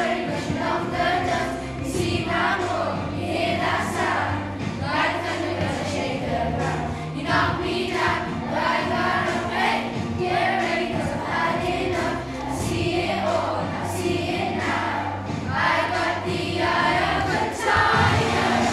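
A group of children singing together over a musical accompaniment with a steady beat.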